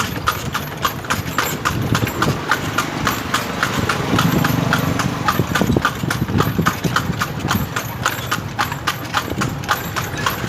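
Hooves of a kalesa's carriage horse clip-clopping in a steady rhythm of about four strikes a second.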